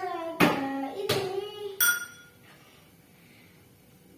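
A girl singing held notes for the first couple of seconds, then a single clink that rings briefly in a few clear tones, and quiet room tone after.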